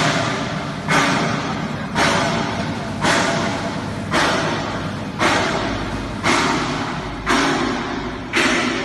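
A heavy thud repeating steadily about once a second, each one dying away slowly before the next.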